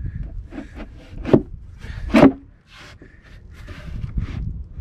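A wooden cutting jig being shifted and seated on a peeled fir log: wood scraping on wood, with two sharp knocks of wood on wood about a second and two seconds in.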